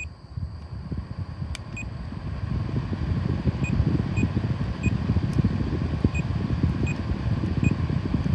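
ZXBEER air purifier with a steady low rumbling noise, and a run of short high-pitched beeps about every half second to second through the middle, like its control panel acknowledging button presses, with a couple of clicks.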